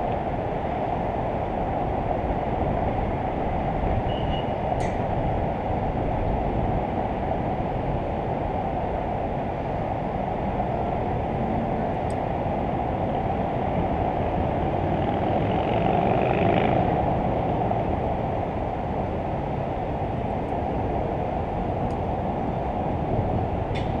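Steady low rumble of wind buffeting a microphone high up on a crane hook, with a few faint clicks and a slight swell about two-thirds of the way through.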